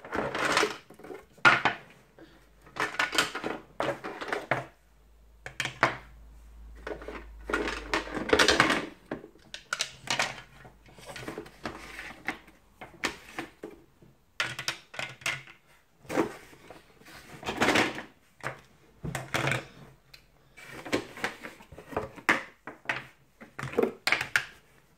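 Hard plastic toy pieces and their packaging being handled, clattering and knocking against each other in irregular bursts.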